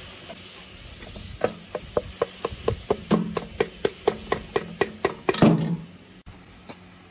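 A quick string of sharp taps, about four a second, with heavier knocks about three seconds and five and a half seconds in. The last knock is the loudest, and the taps stop after it.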